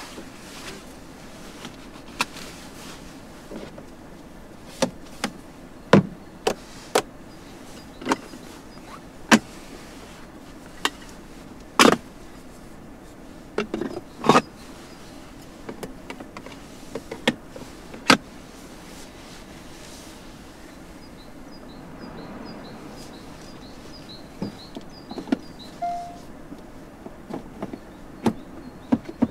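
A dozen or so sharp clicks and knocks at irregular intervals over a steady low hum. From about two-thirds of the way in, a faint, rapid, high chirping joins them.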